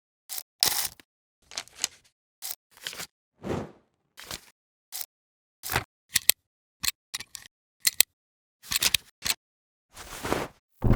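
A string of short old-film transition sound effects, each cut off by dead silence: sharp clicks and snaps alternating with brief noisy whooshes, well over a dozen in all.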